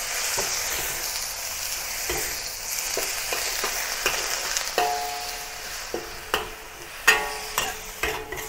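Broccoli and garlic sizzling in hot oil in a wok while a metal wok spatula stirs and tosses them. The spatula scrapes and knocks against the wok again and again. The sizzle dies down toward the end.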